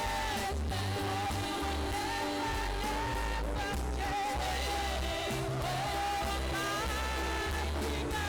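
Worship music: a singer holding long notes that bend slowly between pitches, over sustained chords and a bass line that changes every second or so.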